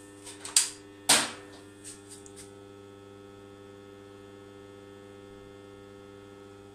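Steady mains hum from the bench isolation transformer, a low buzz at twice the mains frequency with its overtones, while the variac feeds the board. Two sharp clicks come about half a second and a second in, followed by a few faint ticks.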